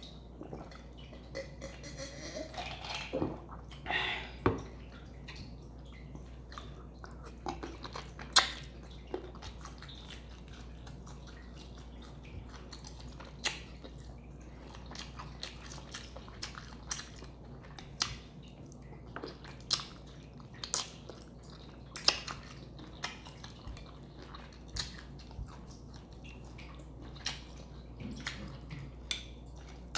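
Chewing and wet mouth smacking of a person eating a seafood boil, with irregular sharp clicks and smacks, the loudest around four and eight seconds in.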